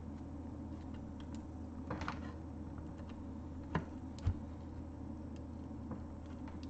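A few light clicks and taps of a graphics card being pushed against a motherboard's PCIe slot as it refuses to seat, over a steady low hum.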